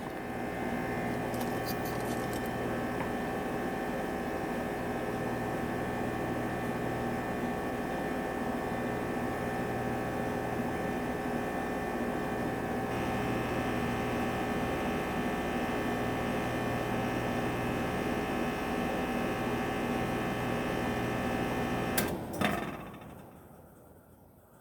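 Heil air conditioner outdoor unit running with a steady hum from its GE condenser fan motor and scroll compressor. About 22 seconds in, a click marks its shutdown, and the sound dies away over the next couple of seconds.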